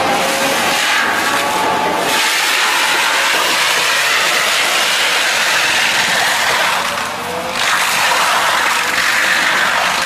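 Excavator-mounted forestry mulcher head shredding a standing conifer from the top down: a loud, continuous grinding and chipping noise that eases briefly about seven seconds in.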